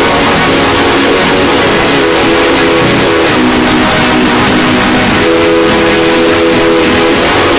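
Deliberately overdriven, clipped electronic sound effect: a harsh distorted noise wash over held multi-note tones that shift in pitch every second or two.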